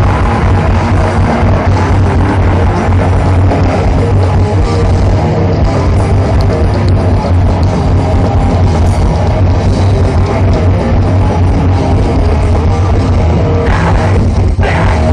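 Grindcore band playing live through a festival PA, recorded loud from within the crowd, with a heavy, booming low end.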